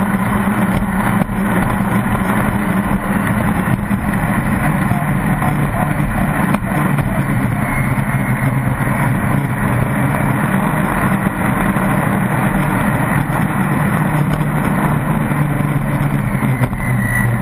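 Pro Stock circle-racing boat's engine running steadily at speed, mixed with the rush of wind and water past the hull as heard from a deck-mounted onboard camera.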